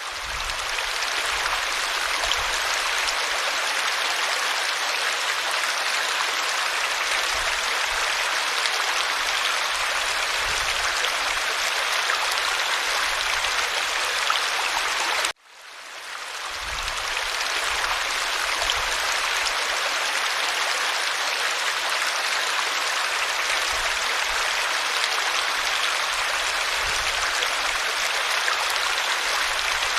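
Running water of a stream flowing steadily. About halfway through it cuts out abruptly and fades back in over a second or two, where the recording loops.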